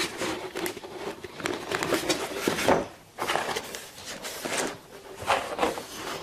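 Handling noise as polystyrene hive panels and plastic corner pieces are moved, set down and rubbed on a workbench: scattered knocks, scrapes and rubbing.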